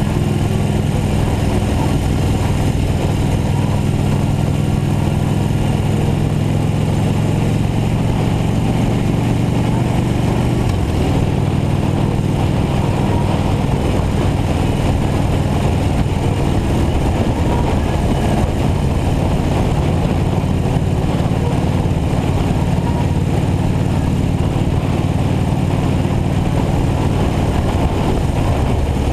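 Cruiser motorcycle engine running steadily while riding along a road, with road and wind noise over it; the engine note changes about eleven seconds in.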